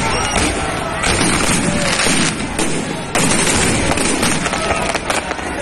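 Aerial fireworks bursting in a rapid, continuous barrage of bangs and crackles. People's voices are mixed in underneath.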